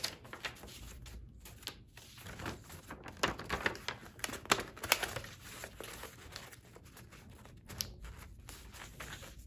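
A square sheet of white paper handled and folded by hand along its creases: irregular rustling and crinkling as it is lifted and bent, with the crispest crackles between about three and five seconds in.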